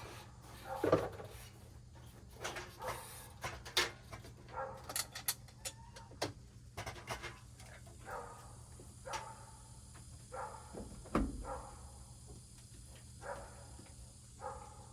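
Scattered short animal calls mixed with sharp clicks and knocks, fairly quiet.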